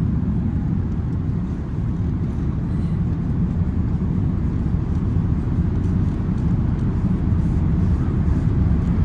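Steady low rumble inside the passenger cabin of an Airbus A380-861, from its Engine Alliance GP7200 engines and the airflow, with no distinct events.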